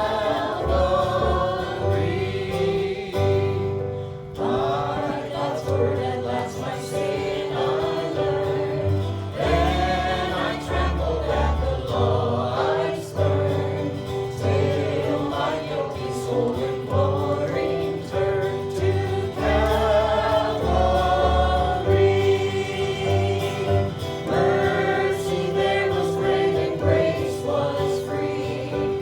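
Choir singing a gospel hymn with instrumental accompaniment: voices over a held keyboard note and a steady bass line.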